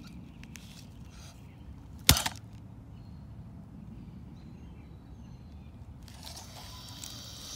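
Toy dinosaur and stick handled on mossy ground: one sharp knock about two seconds in, then a brief rustle near the end, over a steady low outdoor rumble.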